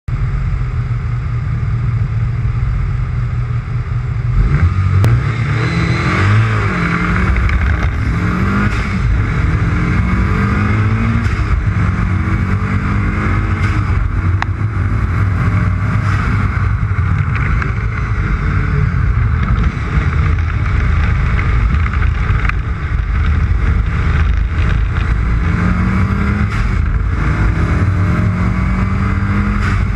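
A race vehicle's engine climbing in pitch again and again as it accelerates, over a heavy rumble of wind and road noise.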